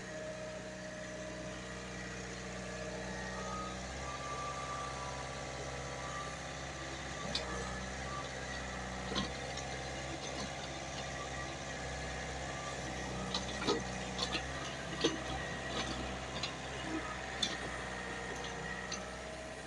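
JCB excavator's diesel engine running steadily, with a scattering of short sharp knocks, most of them in the second half.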